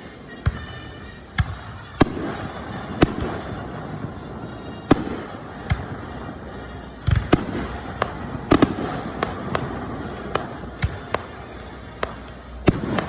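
Fireworks exploding: a string of sharp bangs at uneven intervals, about one a second, with a closer-spaced burst of several loud bangs around the middle.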